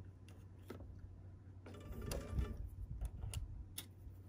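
Faint, irregular clicks and light handling noise at a sewing machine as quilting cotton is fed slowly under the presser foot with a stiletto, over a low steady hum.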